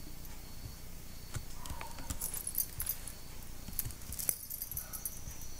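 Quiet room noise with a few faint clicks of a computer mouse, one sharper click a little past four seconds in, and faint high-pitched chirping of crickets in the background.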